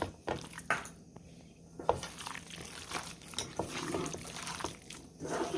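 Boneless chicken pieces being mixed through a thick, wet masala marinade with cornflour and rice flour in a bowl, giving irregular squelching and slapping sounds.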